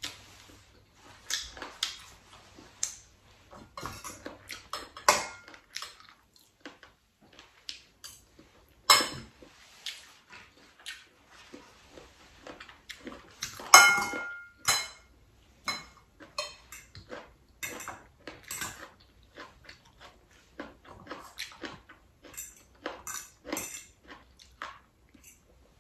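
Eating at a table: irregular clicks and clinks of a metal fork and spoon against a ceramic bowl, with chewing between. The loudest clink, about two thirds of the way in, rings briefly.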